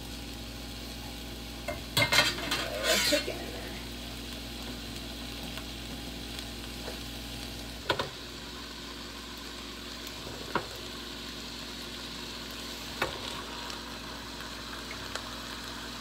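Chopped onions frying in a stainless steel skillet with a steady sizzle. A utensil scrapes and clatters against the pan about two to three seconds in, the loudest part, and a few single knocks follow later as raw chicken pieces are laid into the pan.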